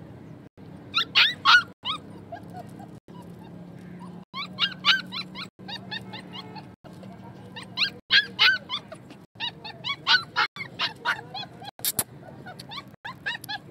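Puppy whining and yelping in short bursts of several quick, high-pitched calls, a few seconds apart.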